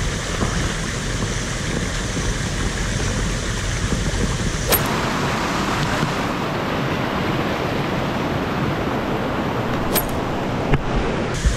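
Stream water rushing over rocks, a steady hiss, broken by a few sharp clicks near the middle and near the end.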